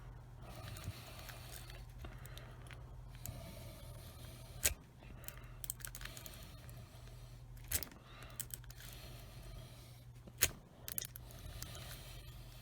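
Lock pick and tension wrench working in a small cheap padlock's keyway: quiet metal scraping and ticking, with three sharper clicks spread through. A faint low hum runs underneath.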